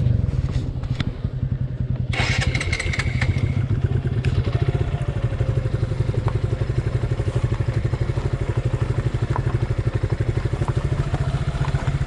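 Suzuki Gixxer 150's single-cylinder engine running steadily as the motorcycle rides, starting abruptly at the beginning. There are rattles and clatter about two to four seconds in.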